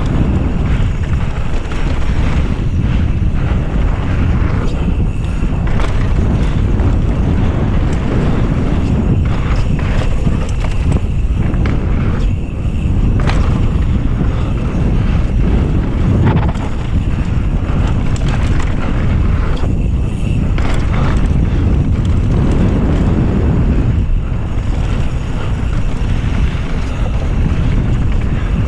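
Wind buffeting the microphone: a loud, steady rumbling rush with small rises and dips.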